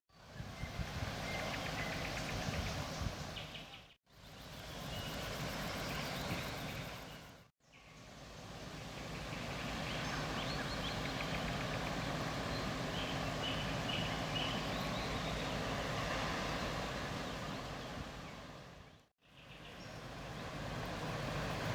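Outdoor ambience: a steady noisy rumble with wind on the microphone and small birds chirping now and then. It drops out to silence three times, briefly, at edits.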